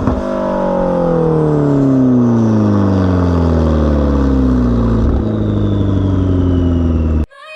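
McLaren 650S twin-turbo V8 running through an AWE aftermarket exhaust: a sharp drop in revs right at the start, then the engine note falling steadily as the revs wind down for about seven seconds, cutting off abruptly near the end.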